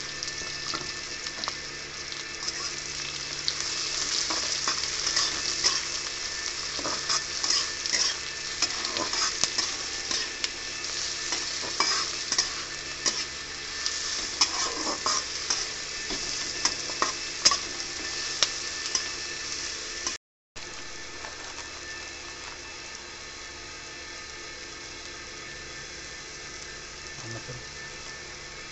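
Sliced onions and dried red chillies sizzling in hot oil in a metal kadhai, with a metal spatula scraping and clicking against the pan as they are stirred. After a brief gap about twenty seconds in, the sizzling goes on steadier and quieter, with no stirring.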